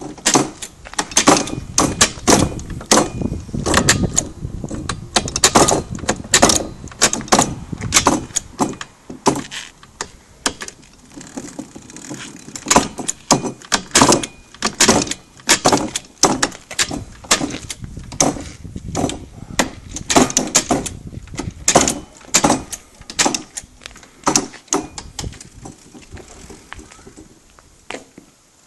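Mechanical shift paddles on a shifter kart worked over and over with the engine off: a fast, irregular run of sharp clicks and clunks from the paddles, shift rod and the TM K9B 125 cc engine's dog-box gearbox stepping through the gears, thinning out near the end.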